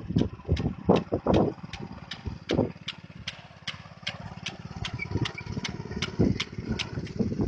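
Rice transplanter's small engine running steadily, with a regular sharp clicking about four times a second and a few louder thumps.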